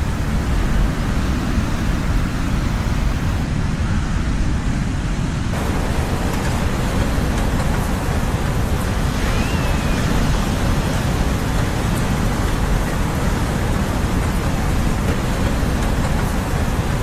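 Steady roar of ocean surf, loudest in the low rumble, with no single wave crash standing out. The hiss turns abruptly brighter about five and a half seconds in, and a faint short chirp sounds once about halfway through.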